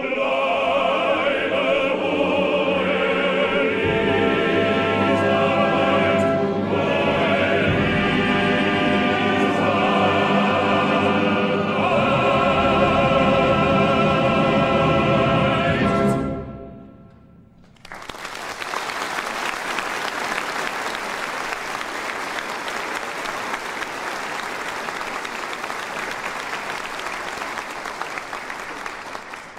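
Chorus singing with orchestra in a live theatre performance of a comic operetta, the number ending a little past halfway. After a brief pause the audience applauds steadily to the end.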